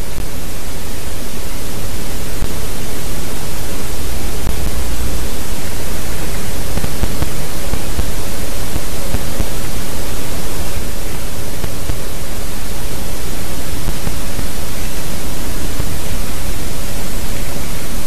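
Loud, steady hiss with a low rumble underneath, picked up by a nest camera's outdoor microphone; no bird calls stand out from it.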